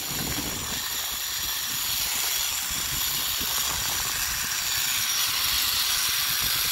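Zipline trolley running along the steel cable at speed, with wind rushing past the microphone: a steady hiss that grows slightly louder.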